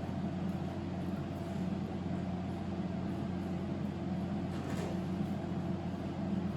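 Steady low mechanical hum from running kitchen equipment, such as a fan or appliance motor, with a faint brief rustle a little past the middle.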